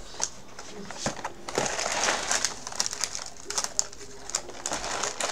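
Crinkling and rustling of a saltine cracker box's plastic sleeve as crackers are taken out, thickest about a second and a half to three seconds in, with small sharp clicks throughout.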